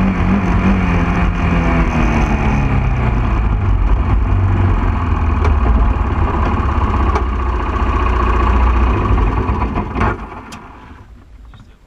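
Honda ATV engine running under way, heard close up with steady rushing road noise, its pitch falling over the first few seconds as it slows. About ten seconds in the sound drops away sharply as the machine comes to a stop.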